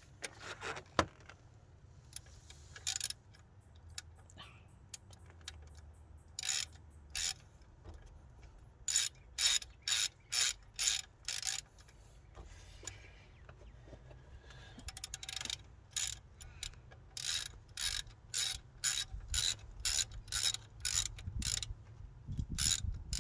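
Socket ratchet clicking in short bursts as an alternator mounting bolt is wound in, about two strokes a second, in runs with pauses between.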